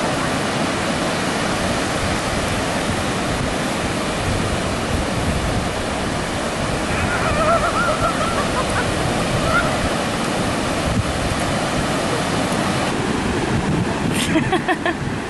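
Ocean surf breaking on a sandy beach, a steady rush with wind buffeting the microphone. A few faint pitched calls rise above it about halfway through, and a short cluster of clicks comes near the end.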